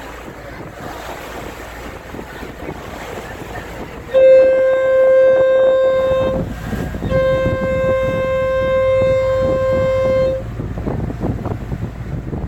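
Ferry boat's horn sounding two long, steady blasts, the first about two seconds and the second about three, over wind on the microphone and the wash of water.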